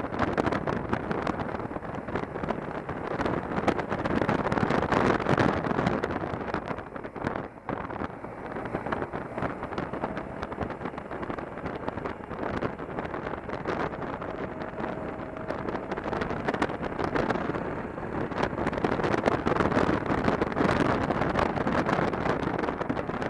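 Motorcycle riding along a road, heard mostly as wind buffeting the microphone with the engine running underneath. The wind noise drops for several seconds in the middle, then grows louder again.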